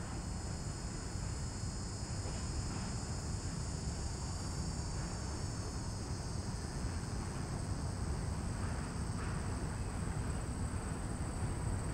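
Steady chorus of insects, a continuous high buzzing, over a low rumble from a freight train rolling away across a steel truss bridge.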